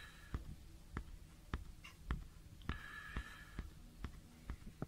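Faint handling noise from a Pentax XW 10mm eyepiece turned in the hand: about ten small clicks and taps, roughly two a second, with a short soft hiss a little under three seconds in.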